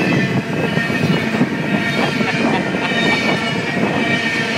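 Double-stack container freight train passing close by: a steady loud rumble and clatter of steel wheels on the rails, with a high steady squeal running over it.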